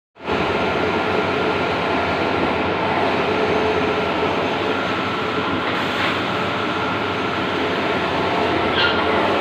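Large-format outdoor banner printer running: a steady mechanical rush with a faint even hum.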